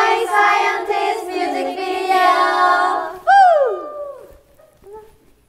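A group of women's voices calling out together in drawn-out, sing-song notes for about three seconds, then a loud high squeal that slides down in pitch and fades.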